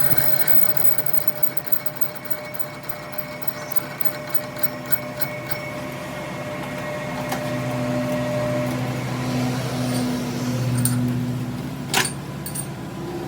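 A workshop machine running steadily with a hum, growing louder for a few seconds in the second half, and a single sharp knock near the end.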